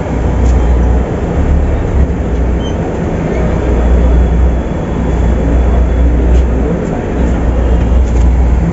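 Volvo 8400 city bus's diesel engine running, a loud low rumble that swells and eases every second or so.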